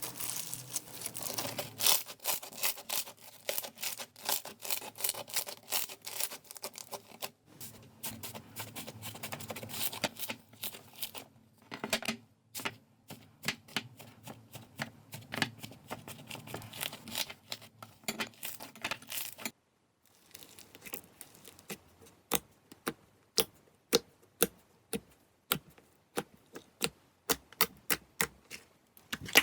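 Slime being squeezed and worked by hand, giving a dense run of small crackles, clicks and pops. After a cut about two-thirds of the way in, the clicks and pops come sparser and sharper.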